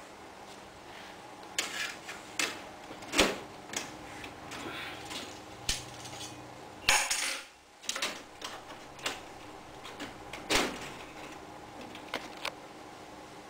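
Light plastic PVC ceiling tiles clicking and knocking against the ceiling grid as they are handled and pushed into place: irregular taps, a sharper knock about three seconds in and a brief clatter about seven seconds in.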